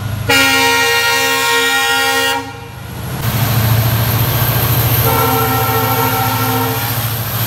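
Indian Railways diesel locomotive sounding its horn as it runs into the platform: one long loud blast of about two seconds, then a second, softer blast a few seconds later. Between the blasts the engine's low drone swells as the locomotive passes close by.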